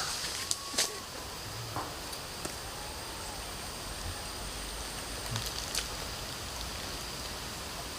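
A steady hiss with a few scattered sharp cracks and clicks, most near the start and again about five to six seconds in, over a faint high steady tone.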